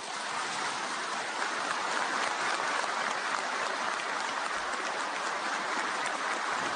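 A large audience applauding steadily, many hands clapping together.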